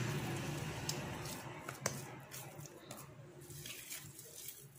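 Faint wet squishing of oily krachel bun dough being rolled into small balls between the hands, with a few soft taps as the balls are set down on a granite countertop. A low hum fades out over the first second or so.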